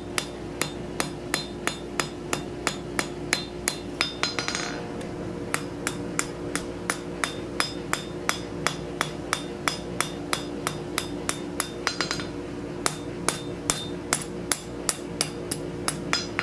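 Hand hammer striking a red-hot steel scroll on an anvil in quick, even blows, about three a second, with two short pauses.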